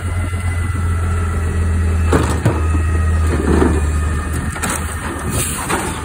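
Labrie Automizer side-loading garbage truck running, with its automated arm's hydraulics whining. Several metal clanks come in the middle and latter part as the arm's grabber claws swing open and the arm moves.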